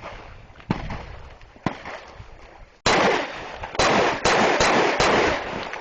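Glock 23 pistol in .40 S&W being fired: about five shots in quick succession, roughly half a second apart. Two fainter knocks come before the first shot.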